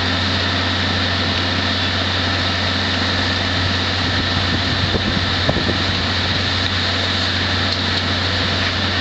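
Aerial ladder fire truck's engine running steadily, a constant low drone with an even hiss over it, and one small knock about five and a half seconds in.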